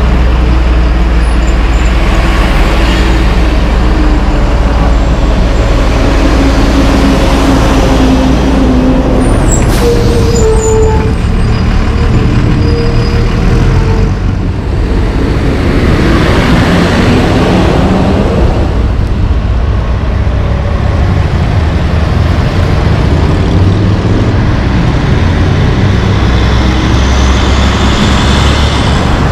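Heavy diesel trucks, a dump truck and a loaded log truck, passing on a city street with engines running under load, over steady traffic noise. A short sharp hiss comes about ten seconds in.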